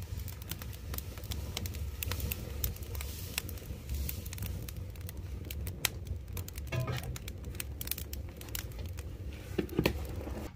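Open wood fire of twigs and brush crackling and popping under a large cooking pot, many sharp pops over a steady low rumble.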